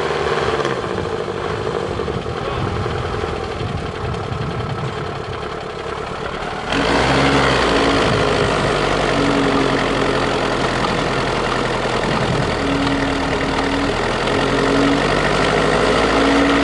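GAZ-66 truck's engine working under load in deep snow. It steps up abruptly and runs louder and harsher from a little under halfway through, with its note swelling and easing several times.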